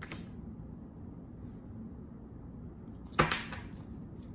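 Tarot cards being handled in quiet room tone: a short crisp card sound at the start as a card is laid down, then one sharp snap of the deck about three seconds in, the loudest sound.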